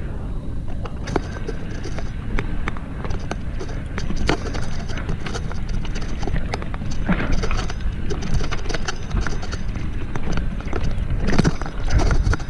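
Mountain bike rolling down a rough dirt trail: steady wind rumble on the microphone with irregular knocks and rattles as the bike bounces over ruts and stones.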